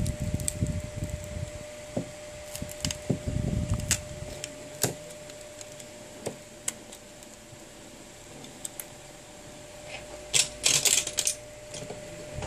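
Scattered clicks and light taps of plastic and glass parts being handled as a phone's touchscreen glass is prised off its display frame, with a quick run of louder clicks near the end. A faint steady hum sits underneath.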